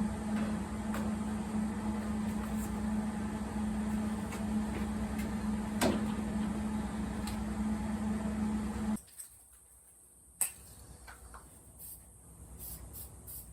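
Steady mechanical hum with a constant low tone that cuts off abruptly about nine seconds in, leaving a much quieter background with a few faint clicks and one sharp tick.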